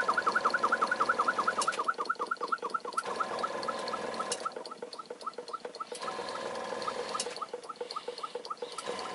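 Muncaster oscillating-cylinder model engine running fast: a quick, even chuff from each exhaust puff of the cylinder, about ten a second, over a light hiss. The beat slows a little and grows quieter from about four seconds in.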